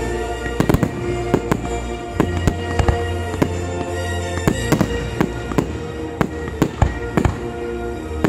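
Fireworks display going off: a rapid series of sharp bangs, about two to three a second, over music playing with the show.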